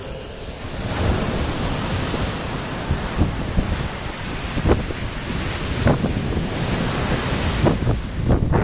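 Sea surf washing on the beach, a steady rushing noise that swells about a second in, mixed with wind on the microphone. A few soft thumps come near the middle and toward the end.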